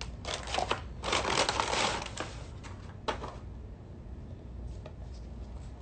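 Brown paper takeout bag crinkling and rustling as it is handled, loudest from about one to two seconds in, followed by a few lighter rustles and ticks.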